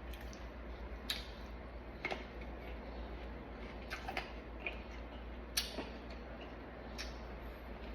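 Mouth sounds of eating fruit: scattered short crisp crunches and clicks, about a second apart, over a steady low hum.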